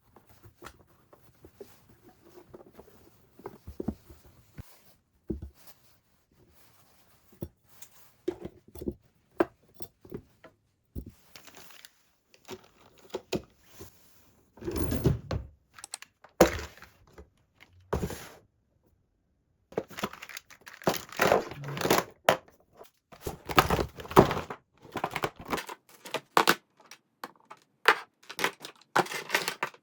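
Small household objects being handled and put down: scattered thunks and clicks with rustling and crinkling, sparse at first and busier in the second half, with a brief break in the middle.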